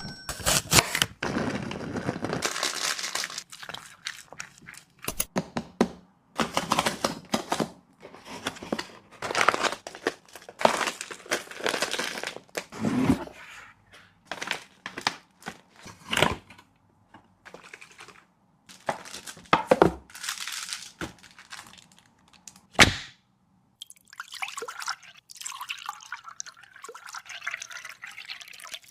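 Dog eating from a bowl: irregular bursts of chewing and crunching with short pauses between, and a few sharp clicks, the sharpest about three quarters of the way through.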